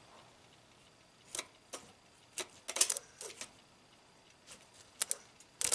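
Irregular light clicks and ticks, about a dozen over several seconds, as a jumper lead is touched to ground to drive the turbo's electronic wastegate actuator motor directly; the actuator travels all the way one way.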